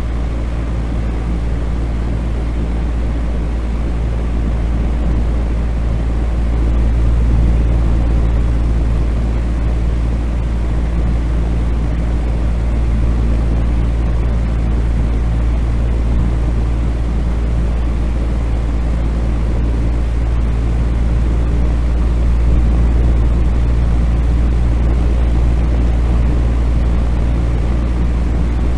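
Fan running steadily: a low hum with an even rush of moving air, unchanging apart from slight swells in level.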